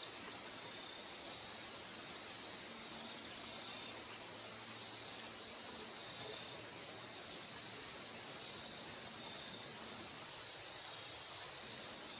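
Steady hiss of foamy surf washing over rocks, with a high, continuous trill above it and two faint ticks around the middle.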